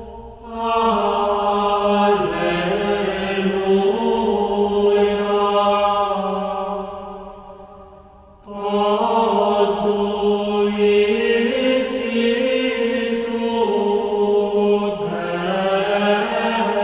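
Background music: a slow sacred vocal chant, sustained voices moving over a steady low drone, in two long phrases, the second starting about eight and a half seconds in.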